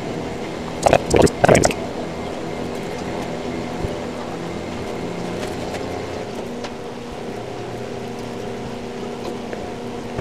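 Steady mechanical hum, like a fan or air-handling unit running, holding several fixed tones. About a second in, two short, louder sounds break over it.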